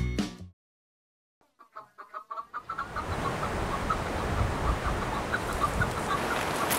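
Background music cuts off half a second in; after a short silence a fowl-like bird gives a quick series of clucking calls, then keeps calling faintly over a steady hiss.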